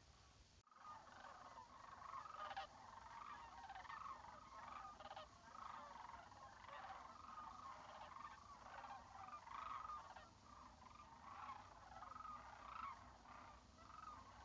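Faint, dense chorus of frogs calling, many overlapping short calls in a steady unbroken mass, starting abruptly just under a second in.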